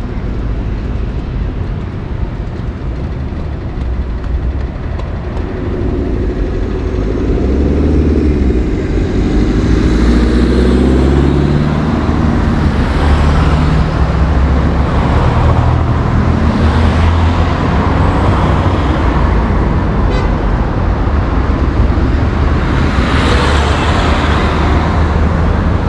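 Busy city street traffic over a steady low rumble. An engine hums close by for several seconds, and motor vehicles pass one after another.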